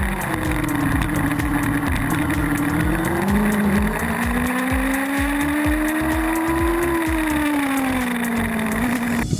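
Formula Student race car's engine heard from on board. Its note steps up about three seconds in, climbs slowly, then falls away near the end as the car drives through the bends. A steady low music beat runs underneath.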